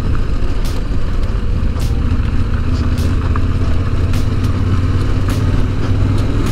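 Yamaha Ténéré 700's parallel-twin engine running steadily while riding a broken, potholed tarmac road, with road and wind noise over it. A faint click repeats about once a second.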